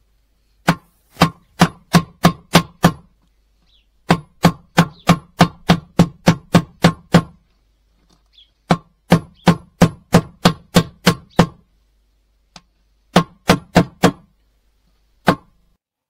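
Hammer blows driving a new bearing into the bearing seat of an Atlant washing machine's plastic tub, struck through the old bearing used as a driver. Sharp blows come about three a second in four runs with short pauses between them, and a single blow lands near the end.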